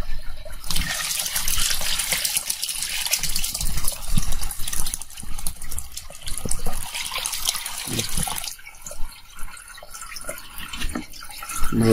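Fermented grape must, five or six days into fermenting, pouring in a stream from a plastic tub into a bowl, gushing and splashing into the foaming liquid as it is strained off to stop the fermentation. The pour eases off and turns quieter about eight and a half seconds in.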